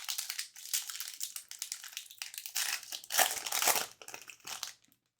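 Hockey card pack wrapper crinkling and crackling as it is opened and handled. The crackling is loudest about three seconds in and stops shortly before the end.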